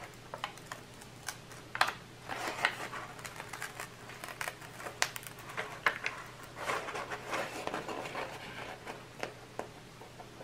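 Paper and a rolled diamond painting canvas being handled and its protective paper opened: rustling and crinkling with many scattered light clicks and taps.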